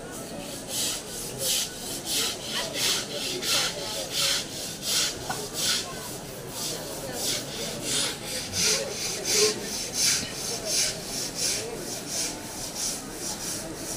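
Hand-held scrubbers rasping over a lying elephant's wet hide during its bath, in quick repeated strokes, about two or three a second.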